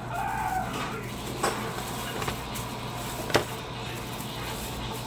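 A chicken calling near the start, then a few sharp clinks like tableware, the loudest about three and a half seconds in.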